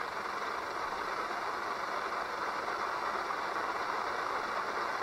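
Steady static hiss from the Eton Elite Executive portable radio's speaker, tuned to the aircraft band, in the gap between air traffic control transmissions.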